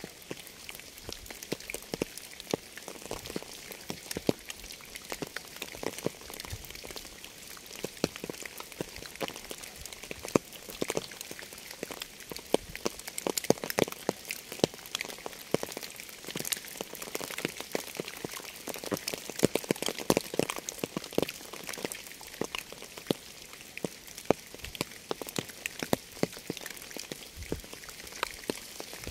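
Rainfall: a steady hiss with many separate drops striking, some louder than others.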